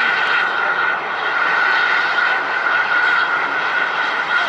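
Turbofan engines of a large jet aircraft running: a steady loud rushing noise with a constant high whine over it.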